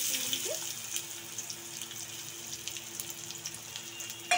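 Chopped onions sizzling in hot oil in a kadai: a steady hiss with small crackling pops as they begin to fry. One short sharp knock near the end.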